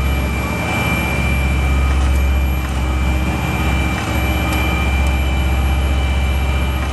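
Roadtec RP-170i asphalt paver running at work, its diesel engine a steady low drone with a high whine over it.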